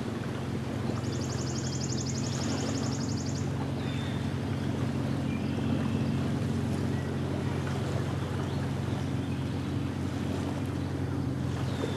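A steady low engine drone over light wind and water noise. A few short high bird chirps sound, and a fast high trill lasts from about a second in to about three and a half seconds.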